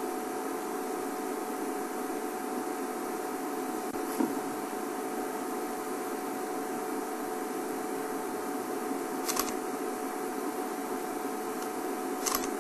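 Steady mechanical hum and hiss, with faint clicks about four and nine seconds in.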